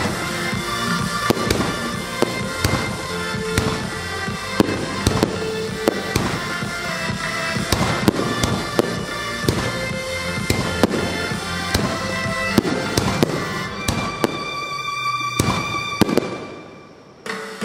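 Aerial fireworks shells bursting in a rapid string of sharp bangs, heard over show music. Near the end the music and bangs fade briefly before starting up again.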